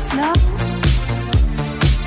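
Dance music with a steady beat, about two beats a second.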